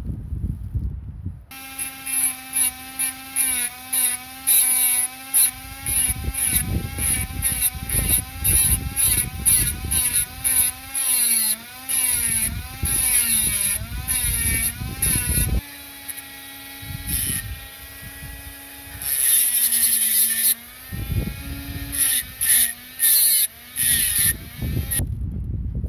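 Power tool grinding metal on a rear drum-brake backing plate, throwing sparks. The motor's whine sags and wavers under load, with rapid, repeated loud scraping bursts as the tool bites. The whine runs steadier for a few seconds around the middle before the grinding resumes.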